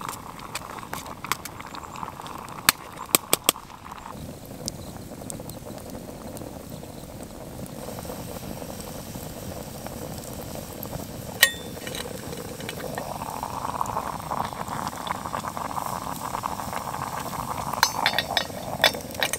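Beef stew bubbling in a lidded titanium pot set on campfire coals, growing stronger over the last few seconds. A few sharp crackles and clicks come through it, with metal clinks near the end as the lid is lifted with a stick.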